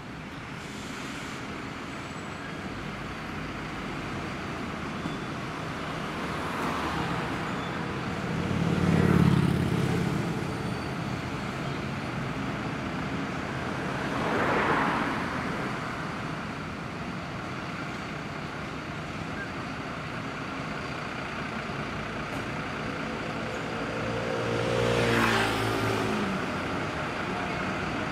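Road traffic: vehicles pass one after another, swelling and fading, the loudest about nine seconds in. Near the end another vehicle passes with a low droning engine note.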